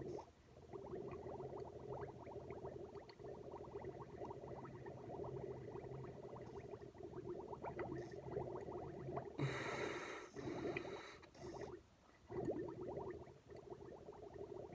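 Steady bubbling and gurgling of air blown through a drinking straw into a glass of milk. A short hissing breath comes about ten seconds in, and the bubbling drops off briefly just after the start and again about twelve seconds in.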